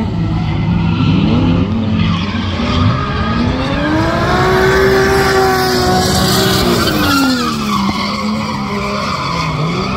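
Drift car's engine revving up, held high for a couple of seconds, then dropping back, with its tyres skidding and squealing as it slides.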